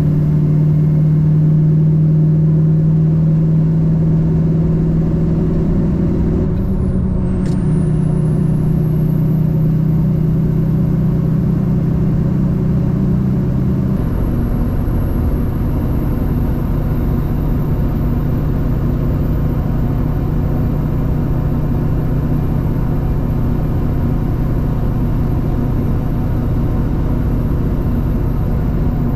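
Diesel pickup truck driving on the road: a steady engine drone with road noise, the engine note changing about a quarter of the way in and again about halfway through.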